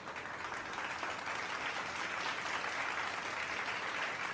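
Audience of children applauding, a steady even clapping.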